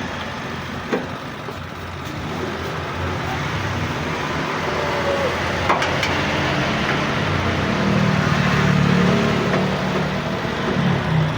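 Road traffic noise: a steady rumble of passing vehicles, with one engine swelling and going past about eight to ten seconds in. There are a couple of light clicks.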